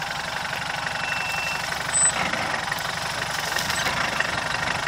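Land Rover Defender engine running at low revs as the 4x4 crawls over rocks, with a brief louder bump about two seconds in.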